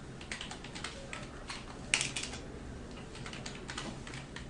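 Computer keyboard typing: irregular key clicks, with one louder keystroke about two seconds in, as segment values are typed into code.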